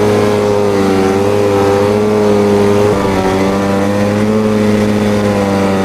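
1995 Polaris Indy Trail 500 snowmobile's two-stroke twin engine running at a steady speed while riding across snow, with a brief dip about three seconds in. Its carburettors, the rider says, need to be tuned.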